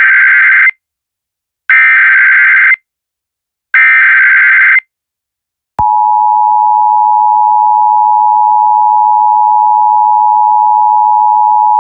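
Emergency Alert System SAME header: three bursts of data tones, each about a second long and a second apart. Then, about six seconds in, the loud steady two-tone EAS attention signal starts and holds.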